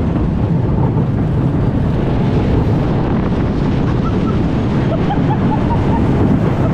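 Roller coaster train running with wind buffeting the microphone: a steady, loud rumble, with a few faint short rising chirps from about four seconds in.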